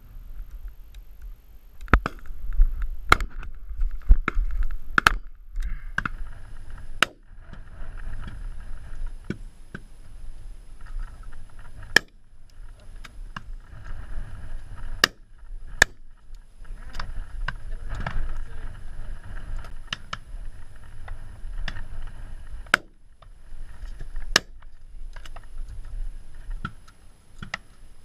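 Wind buffeting the camera's microphone as an uneven rumble, with a series of sharp clicks and knocks scattered through it, several close together in the first few seconds.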